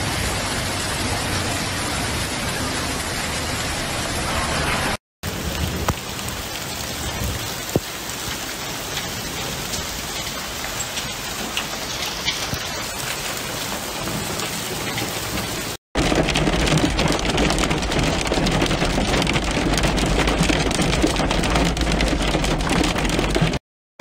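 Heavy rain falling with a dense, steady hiss, cutting out briefly twice. In the last few seconds a heavier low rumble joins the rain and is the loudest part.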